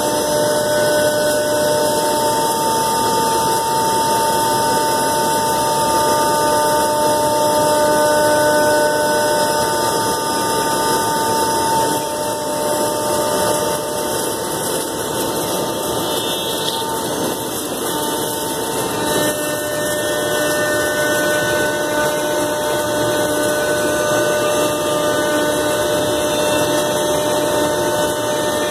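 Komo VR510 Mach 1 CNC router spindle running and its cutter routing grooves in a white plastic sheet: a steady whine of several held tones over a dense cutting noise, shifting slightly about twelve and nineteen seconds in.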